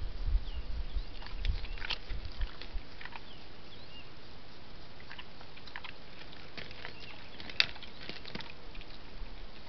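Warthog rooting and stepping on stony ground: scattered small clicks and scrapes over a steady hiss, with one sharper click about three-quarters through and a few faint bird chirps.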